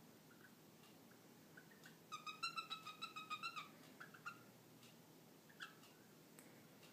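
Hen cockatiel making her mating noise: a quick run of about a dozen short, pitched chirps lasting about a second and a half, starting about two seconds in, then a few faint single chirps.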